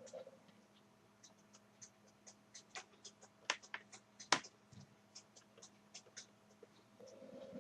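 Scattered light clicks and ticks of a small screwdriver and fingers working screws out of a laptop's plastic case. There are two sharper knocks about three and a half and four seconds in.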